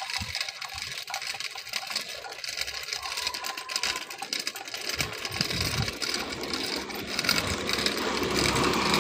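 Measuring wheel rolling along a concrete sidewalk, its counter ticking in rapid clicks. A steady background noise grows louder over the last few seconds.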